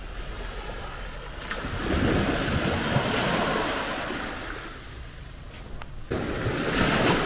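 Sea waves washing onto the beach. The wash swells up about two seconds in, dies back, and swells again near the end.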